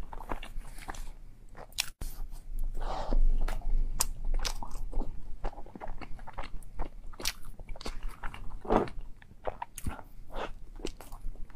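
A person biting into and chewing soft chocolate-glazed bread filled with chocolate sauce, close to the microphone: wet mouth sounds and many small irregular clicks.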